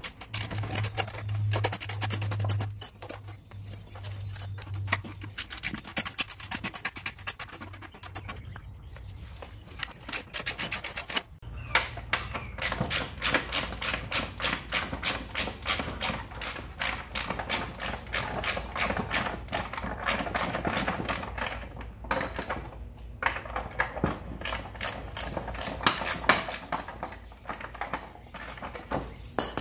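Socket ratchet clicking in quick runs with short pauses, backing out the Tecumseh engine's mounting bolts under the mower deck.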